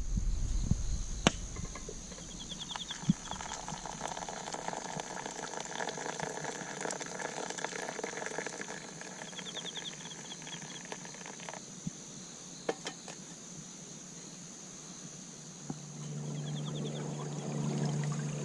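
Steady high-pitched chirring of insects, with a short trill three times and a few sharp clicks. A low steady musical tone comes in near the end.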